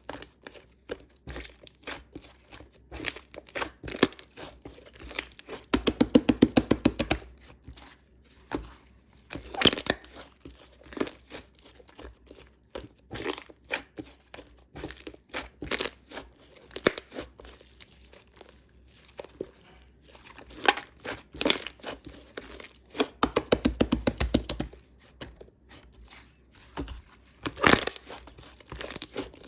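White slime being squeezed and worked by hand, giving irregular crackling pops and clicks. Twice it breaks into a rapid run of popping that lasts about a second.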